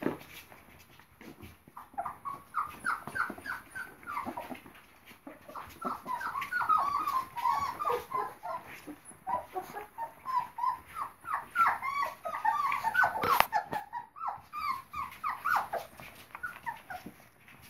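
Young Labrador retriever puppies whimpering and squeaking while nursing at their mother, a rapid run of short high squeaks that thickens in the middle and thins out near the end. One sharp knock about two-thirds of the way through.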